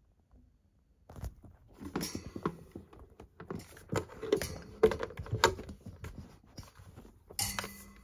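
Irregular clicks, knocks and light rattles of something being handled, with a brief low hum near the end.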